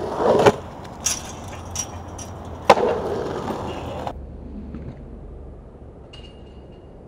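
Skateboard rolling on asphalt with sharp clacks of the board: a loud burst right at the start, lighter clicks, and the loudest clack just under three seconds in. The sound then drops to a quieter background about four seconds in.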